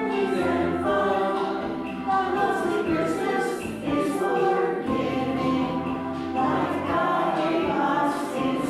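A choir singing a song, with steady held low notes sounding beneath the voices.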